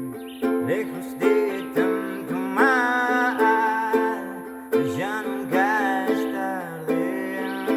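Song accompaniment between sung lines: a strummed acoustic string instrument keeping a steady rhythm of chords about twice a second, with a melody line that slides up and down in pitch over it.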